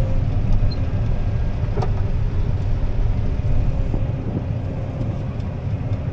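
Steady low rumble of a vehicle driving, with a faint steady hum and one short click about two seconds in.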